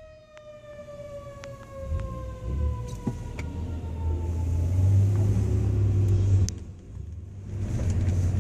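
Fire truck siren winding down, its tone sliding slowly lower over the first few seconds and fading out. A heavy truck engine then rumbles as the ladder truck pulls away, loudest midway and easing off near the end.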